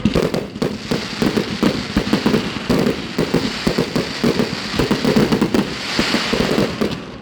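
Fireworks display going off in a dense, rapid run of pops and bangs over a continuous crackle, easing off near the end.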